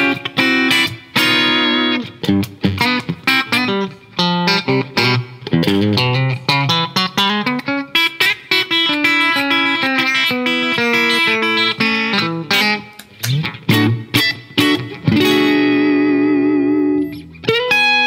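Electric guitar, a Fender Stratocaster, played through a Fairfield Circuitry Accountant compressor pedal: quick picked single-note runs and chord stabs with an even, compressed sustain, settling on a held note with vibrato near the end.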